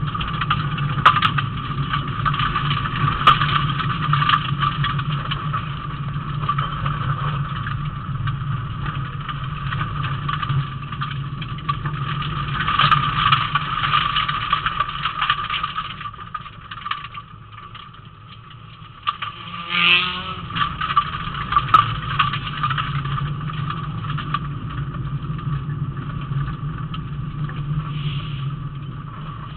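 Rally car engine running hard with road and gravel noise, heard from inside the cabin at stage speed. It eases off for a few seconds about two-thirds of the way through, then a quick rising whine as it picks up again.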